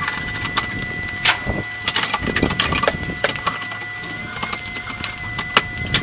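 Irregular metallic clicks and clinks of a hand wrench working the two bolts of a C5 Corvette's exhaust mount.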